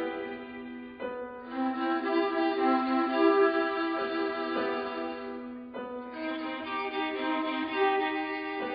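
Music with bowed strings, violin in the lead, moving from note to note about once a second.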